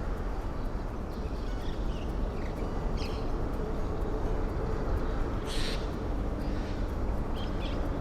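Outdoor ambience by a river: a steady low rumble, with short high bird chirps a few times and a brief hiss about halfway through.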